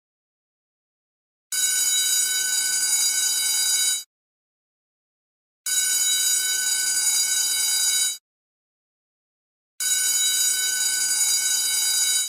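School bell ringing in three separate rings, each lasting about two and a half seconds, with a gap of about a second and a half of silence between them.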